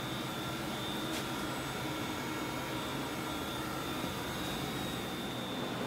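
A powered-up Doosan MV-3016L vertical machining center humming steadily, with a thin high whine held at one pitch and a faint click about a second in.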